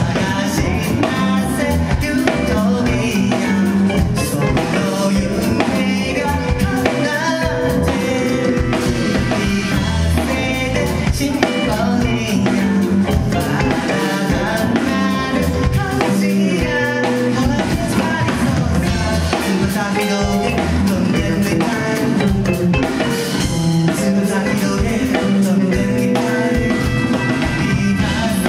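Live band music from a drum kit, electric guitar and bass guitar, played loud.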